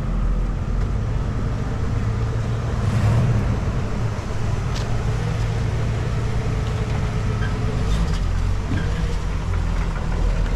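A car engine running steadily at idle, a low even rumble.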